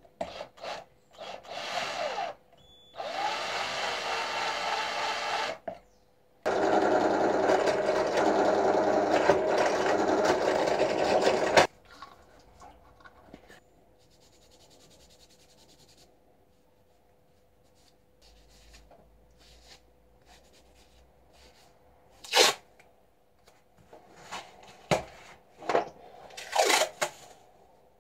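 Cordless drill running in three bursts, drilling holes through a ram's horn knife-handle scale; the longest run lasts about five seconds. Near the end, a few sharp clicks and taps of parts being handled on the bench.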